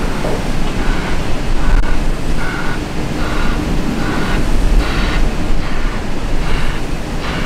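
Volvo L180H wheel loader's diesel engine running as the machine reverses, with its reversing alarm pulsing a little more than once a second. Heavy wind rumble on the microphone underneath.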